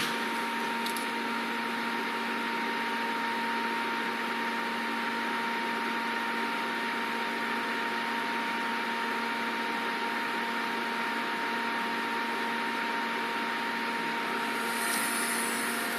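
Steady machine hum: an even whirring noise with a couple of constant tones that holds unchanged.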